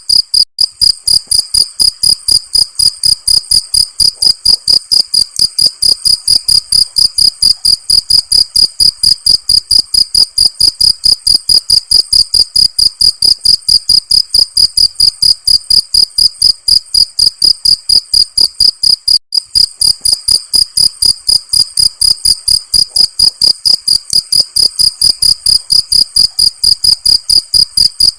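Cricket chirping in a fast, even rhythm of about four to five high-pitched chirps a second.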